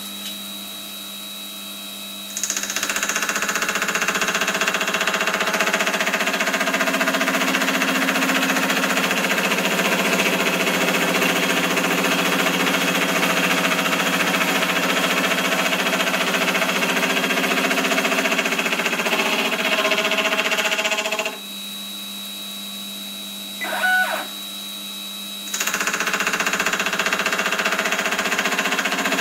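Motor-driven milling spindle with a gear cutter running at 900 RPM, cutting teeth in a 7075 aluminium gear blank. A loud, steady cutting noise starts about two seconds in and lasts about nineteen seconds, then falls back to the quieter hum of the running spindle, with a brief whirr as the stepper-driven rotary table indexes to the next tooth, and the cutting noise starts again near the end. The cutter runs slightly out of true from eccentricity in the collet or collet holder.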